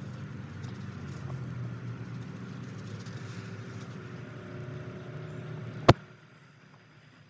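Low, steady rumble like a motor vehicle running nearby, ended about six seconds in by a single sharp click, after which only a faint hum remains.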